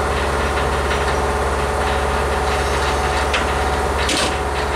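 Heavy diesel engine idling steadily with a constant low hum, with a short sharp hiss about four seconds in.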